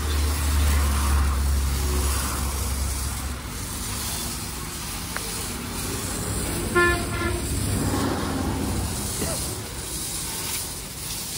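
Pressure-washer water spray hissing against a truck, with a low hum for the first few seconds. About seven seconds in, a vehicle horn honks once, briefly, and is the loudest sound.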